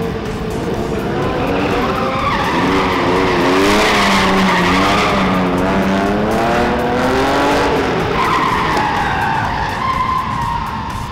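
Stunt car drifting, its engine revving hard with the revs wavering up and down as the tyres squeal and skid. The noise is loudest in the middle, and a long tyre squeal follows near the end.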